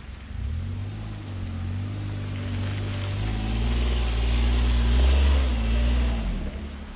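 A motor vehicle's engine running with a low hum that comes in suddenly, grows louder to a peak a little past the middle, then eases off.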